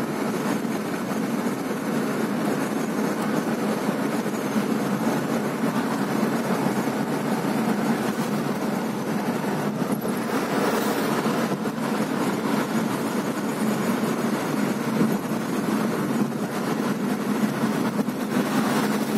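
Steady road and engine noise inside a moving car's cabin, an even rumble with a low steady hum.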